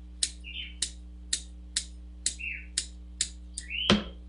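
Root-pruning scissors snipping through a bonsai's old roots, about two cuts a second, cutting away the excess roots during repotting. A few short squeaks come between the cuts, and a louder knock comes near the end.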